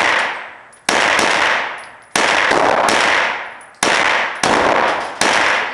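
Handgun fired five times at an uneven pace, each shot followed by a long echo off the walls of the indoor range.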